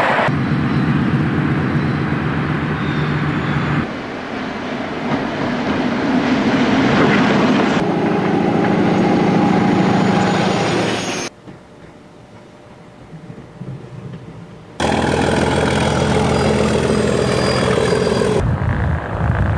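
A run of separate recordings of diesel trains passing, each cut off sharply after a few seconds: engines running and coaches and wagons rolling on the rails. A quieter, more distant pass sits in the middle.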